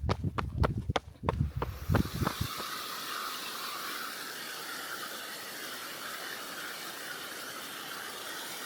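Running footsteps thud on the trail for about two and a half seconds, then stop, giving way to the steady rushing hiss of a creek.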